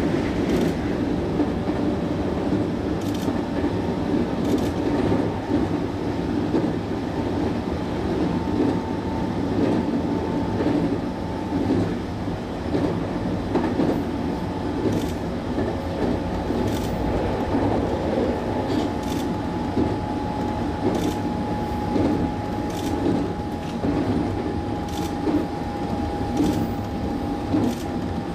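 Running noise heard aboard a JR West 221 series electric train at speed: a steady rumble of wheels on rail, a faint steady whine from the motors and gears, and scattered light clicks from the track.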